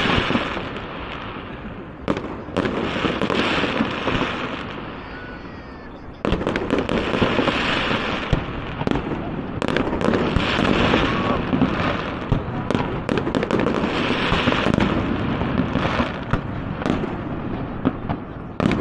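Fireworks display: repeated sharp bangs of aerial shells, each followed by crackling, with a big burst about six seconds in and near-continuous crackle after it.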